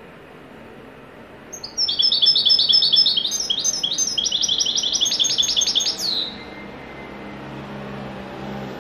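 European goldfinch singing a rapid run of repeated high notes, about six a second, in the song style keepers call haddadi ('blacksmith'). The run starts about two seconds in, lasts about four seconds and ends with a single sliding note.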